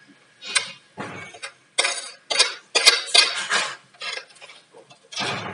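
Wire grill and plastic parts of a pedestal fan rattling and clicking in a string of short clatters as the rear grill is handled and seated on the motor housing.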